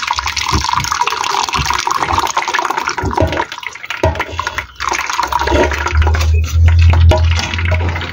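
Thin risol crepe batter pouring from an aluminium basin through a wire strainer into an aluminium pot: a steady liquid splashing. About three and a half seconds in the stream breaks off, followed by light clicks as the strainer is handled and a low rumble near the end.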